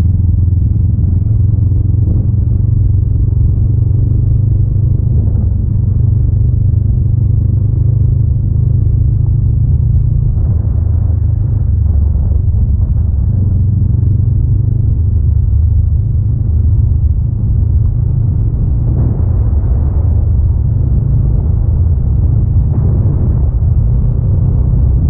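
Honda Rebel 500's parallel-twin engine running at a steady speed on the move, a constant low rumble with no revving. Now and then short rattles break in over it, as from the wheels on the dirt track.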